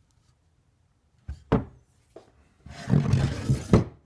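Things being handled and knocked about in a small garage: two sharp thuds a quarter second apart, then about a second of rough scraping noise ending in another thud.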